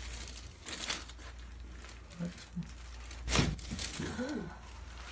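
Rustling and handling noises on a chiropractic table, with a sharp knock about three and a half seconds in and a brief murmured vocal sound just after it.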